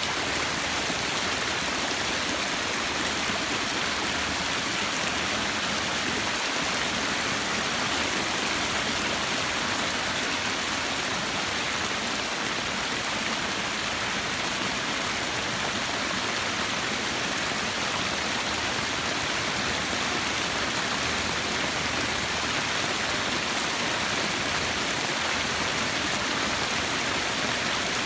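Heavy rain and storm runoff rushing steadily down a stone-lined backyard dry creek bed, which is overflowing because it cannot handle this much rain.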